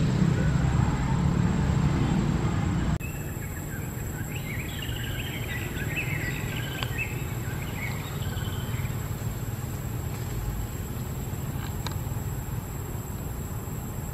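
Outdoor ambience with a low rumble that cuts off abruptly about three seconds in. Quieter ambience follows, with a flurry of short high chirping calls in the middle.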